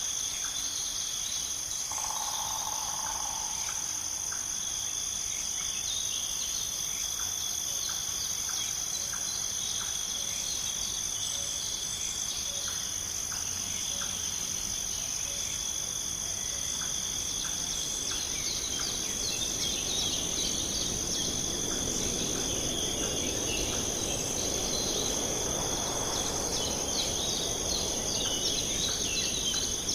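Steady insect chorus, cricket-like, trilling continuously at two high pitches, with scattered bird chirps. A rushing noise swells in the second half.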